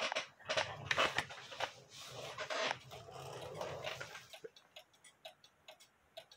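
Rustling and knocking from the camera being moved. From about four seconds in, a mechanical cuckoo clock movement ticks quickly and evenly, about three ticks a second.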